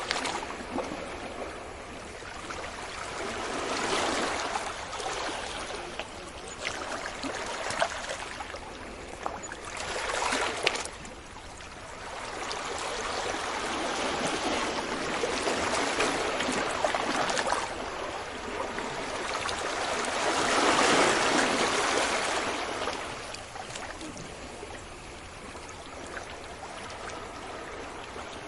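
Sea waves breaking on a beach and washing back, swelling and fading in slow surges every few seconds. The loudest surge comes about three-quarters of the way through.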